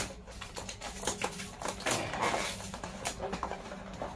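Cardboard keyboard box being opened and handled: irregular scrapes, rustles and light knocks of the cardboard flap and packaging, with a sharp one at the very start.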